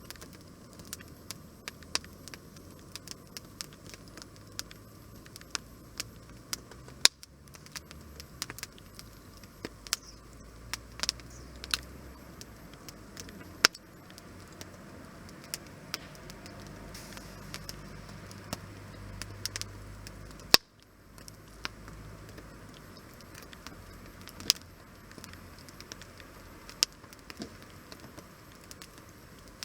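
Wood fire crackling in a tent-Mark DESIGNS Tonbi fire grill: a steady scatter of sharp pops and snaps at irregular intervals, a few much louder than the rest, over a soft low rumble of the burning.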